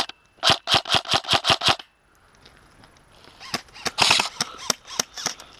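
Tokyo Marui HK416 airsoft electric rifle firing a quick string of about eight shots in just over a second. After a short pause it fires a second, more ragged string of shots.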